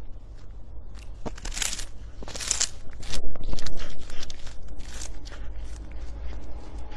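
A cat biting and chewing a dried fish treat: a quick run of sharp, crisp crunches, loudest from about one to five seconds in.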